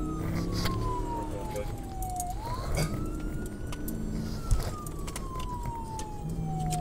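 Police cruiser siren in wail mode: a tone rising quickly and then falling slowly, about one sweep every four and a half seconds. It is heard from inside the cruiser's cabin over engine and road rumble, with scattered clicks.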